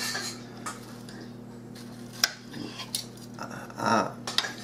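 Knife and fork clinking and scraping on a plate while cutting baked chicken, with a few sharp clinks, the loudest about halfway through.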